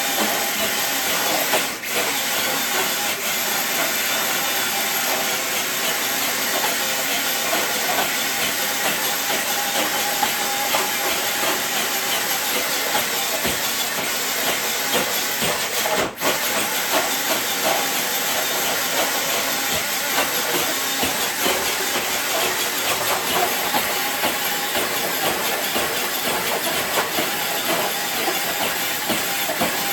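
Steady gritty hiss from RC trucks pulling a weighted dead sled across the ground, the sled and tyres scraping along with a faint drivetrain whine. The sound drops out briefly about two seconds in and again a little past the middle.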